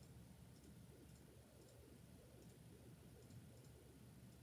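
Near silence: low room hum with faint, irregular clicks from working a computer, about two a second.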